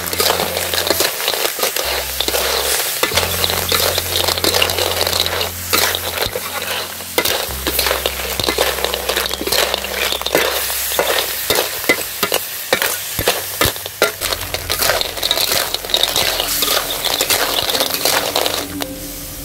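Blood cockles, chillies and greens sizzling as they are stir-fried in a metal wok, with many clicks and scrapes of a metal spatula against the pan and the cockle shells.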